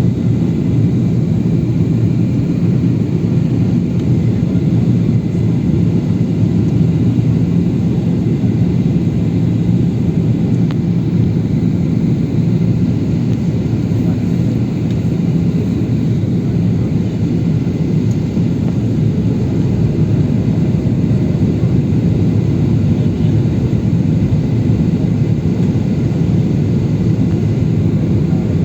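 Steady low rumble of a jet airliner heard from inside the cabin in flight: engine and airflow noise, unchanging throughout.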